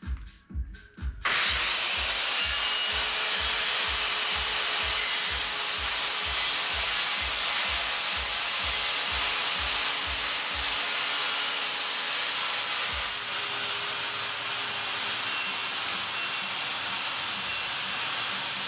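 Circular saw cutting a UHMW plastic sheet, a 45-degree bevel along its edge: the motor's whine rises as it spins up about a second in, then runs steady through a long cut.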